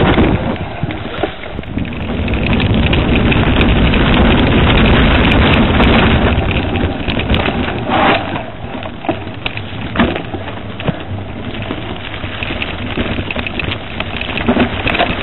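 Wind buffeting the microphone of a camera riding on a moving mountain bike, with a steady low rumble from the tyres and a few sharp knocks from the bike, about eight and ten seconds in.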